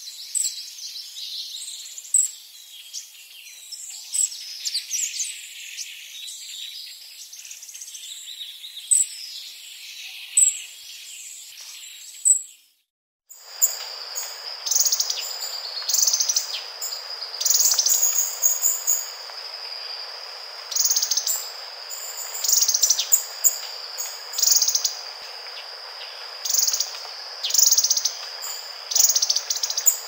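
Ussher's flycatcher calling: sharp high notes over a busy chorus of high chirps. A little before halfway the sound breaks off briefly and a Chapin's flycatcher takes over, giving short high calls every second or two over a steady high whine.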